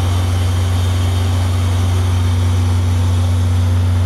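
Steady low rumble with hiss inside the cab of steam locomotive C56 160, unchanging throughout.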